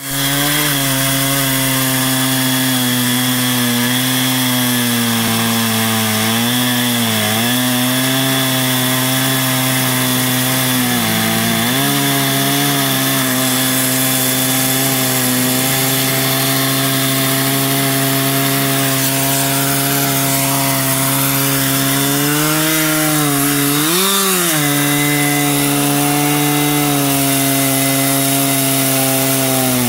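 Two-stroke chainsaw running flat out in an Alaskan chainsaw mill, ripping a log lengthwise. Its engine note holds steady, dipping briefly in pitch three times as the cut loads it.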